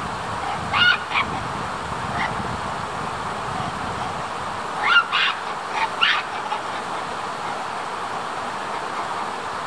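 Japanese macaques giving short, sharp, high calls in two brief clusters, about a second in and again about five to six seconds in, over a steady background hiss.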